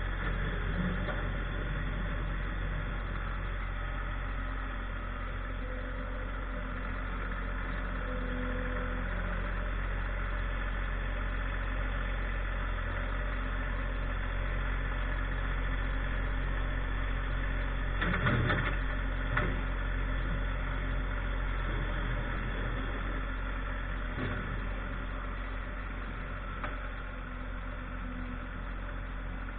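Tractor engine running steadily, with a brief clatter of knocks about two-thirds of the way through.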